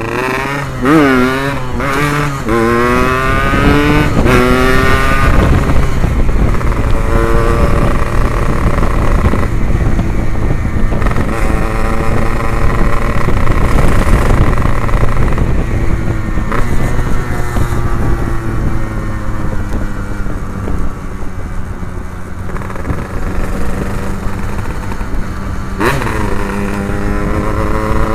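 Yamaha RX-King two-stroke single-cylinder engine running through an Abbox C20 aftermarket exhaust while riding, revving up and dropping back several times through the gears in the first five seconds. It then holds a steadier cruising note, with another rise near the end.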